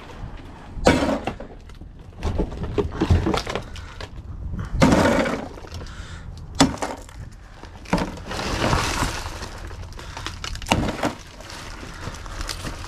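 Scrap and junk clattering and crashing as debris in a dumpster is dug through and pulled out: a run of separate knocks and crunches, with louder crashes about a second in, around five seconds, and near the end.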